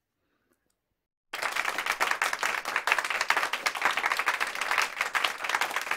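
Applause from many hands, a dense patter of claps that starts abruptly about a second in, after a moment of silence.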